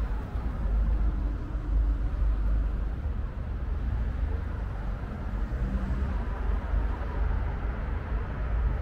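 Street ambience: a steady low rumble of road traffic with no distinct events.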